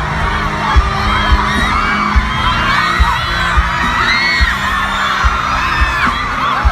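A crowd screaming, many high voices overlapping, over music with a heavy low beat that hits a little less than once a second.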